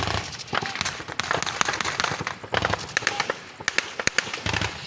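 Gunfire from automatic weapons: several bursts of rapid shots, one after another, during an armed exchange.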